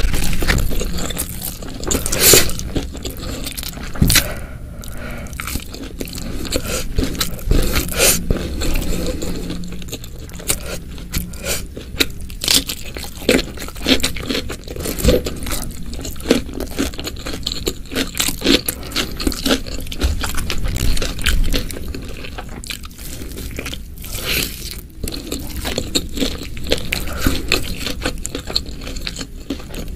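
Close-miked eating: irregular crunchy bites and chewing, mixed with scraping sounds.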